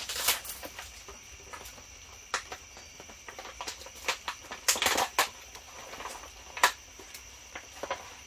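Crinkling and rustling of a packaging pouch being handled and opened by hand, in irregular bursts with crisp crackles, the sharpest a single snap about six and a half seconds in.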